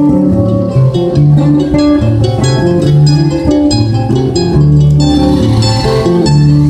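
Acoustic guitar and mandolin playing an instrumental introduction together: picked melody notes over a steady rhythm of strummed chords and bass notes, with no singing yet.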